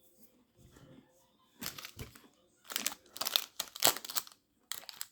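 Plastic candy-bar wrapper being crinkled and crumpled in the hands. It comes in uneven crackling bursts that start about a second and a half in and are loudest around the third and fourth seconds.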